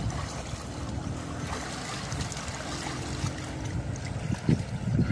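River water splashing and lapping as a man swims through it.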